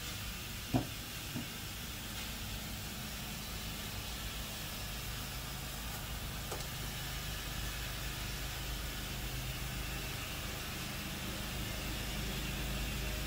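Electric piston air compressor running steadily during a long run under load, a constant hum with a hiss over it. A short tap comes about a second in, with a smaller one just after.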